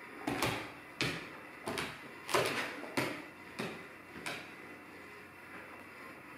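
A golden retriever's paws striking a hardwood floor as it pounces on a laser dot: a run of about seven sharp knocks, roughly one every two-thirds of a second, that stops after about four and a half seconds.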